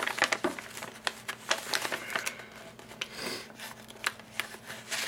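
A mailing bag being opened by hand: irregular crinkling and rustling of the packaging, with sharp crackles throughout.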